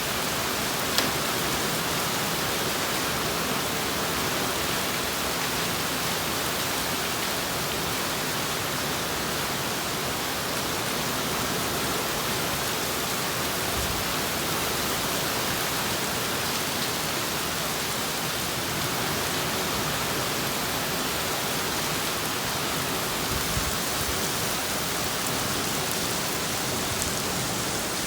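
Heavy rain pouring steadily in a summer downpour, an even hiss of water, with one sharp tick about a second in.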